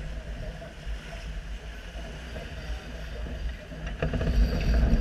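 Wind buffeting the microphone and water rushing along the hull of a J80 sailboat under way, a steady rumbling hiss that grows louder about four seconds in.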